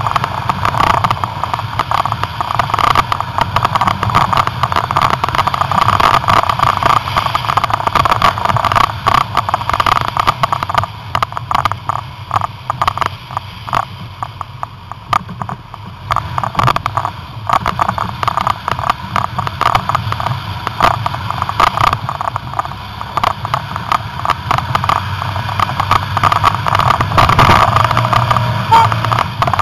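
Jeep Grand Cherokee driving through deep snow, heard from a camera mounted low on the front bumper: the engine runs steadily under frequent crunches and knocks of snow and ruts against the front end. It eases off a little midway and grows louder toward the end.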